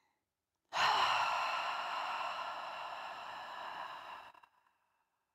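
A woman's deep breath let out through the mouth: one long, audible sigh that starts about a second in, is loudest at the start and fades out over about three and a half seconds.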